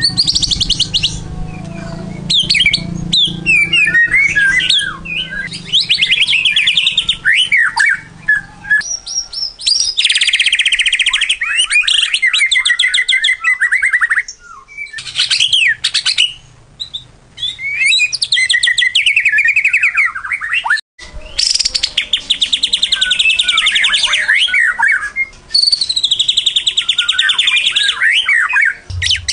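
White-rumped shama (murai batu) singing a long, varied song of loud whistles, chattering phrases and rapid trills, broken by a few short pauses.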